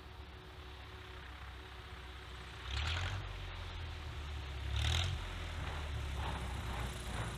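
Aviat Husky A-1B light aircraft landing, its engine faint under a steady low rumble of wind on the microphone. Two louder whooshing swells come about three and five seconds in.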